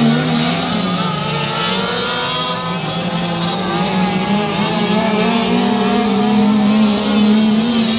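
Race car engine running at speed during hot laps, its pitch wavering up and down.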